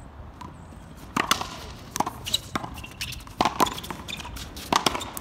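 Racquetball rally: a quick string of sharp cracks from the ball being struck by racquets and smacking off the concrete wall and court, starting about a second in.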